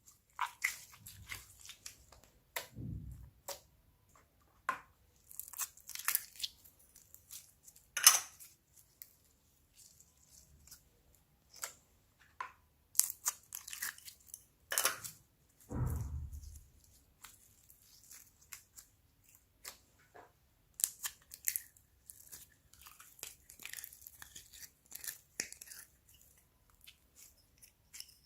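Store-bought slimes being mixed by hand: sticky clicks, crackles and tearing pops as the slime is pressed, stretched and pulled apart. Two heavier low squelching thuds come about 3 s in and about 16 s in.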